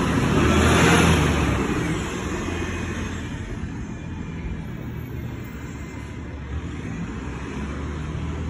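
A city bus passes close by and pulls away. Its engine and road noise are loudest about a second in, then fade as it moves off, leaving a low street rumble.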